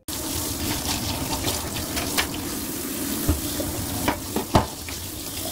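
Tap water running and splashing into a stainless steel sink as an old yellow cucumber is washed under the stream. A few light knocks come in the second half.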